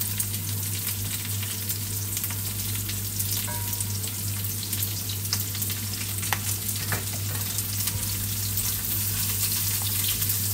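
Carrot strips frying in oil in a nonstick frying pan: a steady sizzle with scattered crackles and pops, over a steady low hum. Near the end a spatula stirs them.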